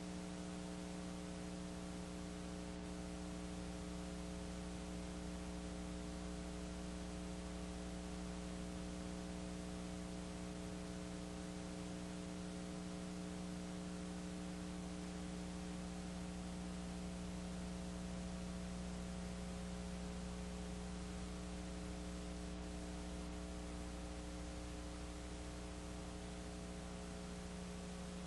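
Steady electrical mains hum, a low buzz with a stack of overtones, over an even hiss; it does not change and no game sound comes through.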